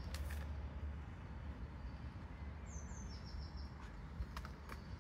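Woodland ambience: a small songbird gives one short, high call that steps down in pitch about three seconds in, over a steady low rumble, with a few faint clicks.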